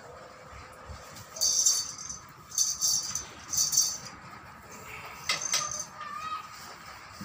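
Short bursts of metallic jingling and rattling, three times about a second apart, followed by a few sharp clicks.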